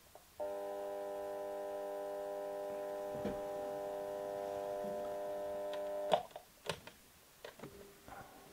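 Digital alarm clock buzzing in one steady, unbroken tone, switched off abruptly about six seconds in with a click, followed by a few light knocks.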